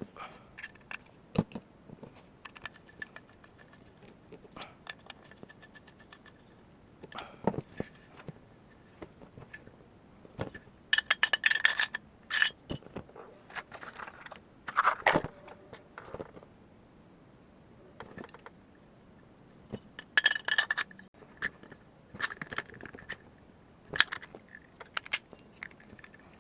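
Metal parts of an airsoft gas-blowback rifle being handled and fitted together: scattered clicks, clinks and scrapes, with two busier flurries of rapid clicking, one near the middle and one about three-quarters through.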